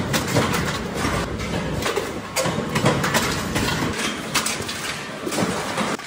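Flywheel-driven mechanical punch press running, with irregular metallic knocks and clanks as it punches screw holes in a steel motorcycle fuel-tank shell.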